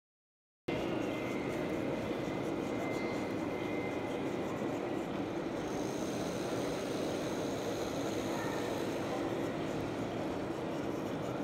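Steady, even background din of a large hall, cutting in suddenly about a second in, with a faint high whine for a few seconds midway.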